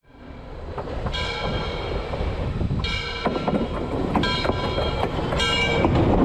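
Steam locomotive approaching and running over the track: its chime whistle blows four times, the first blast the longest, over a rumble and rhythmic wheel clatter on the rails that grow steadily louder as it nears.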